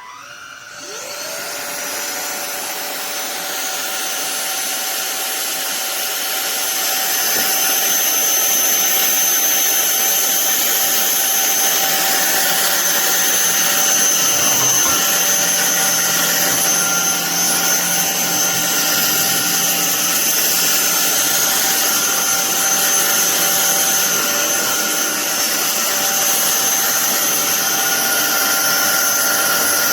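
SunSare cordless stick vacuum cleaner switched on: its motor spins up with a rising whine, then runs steadily with a high, even whine. It grows louder over the first several seconds, then holds level.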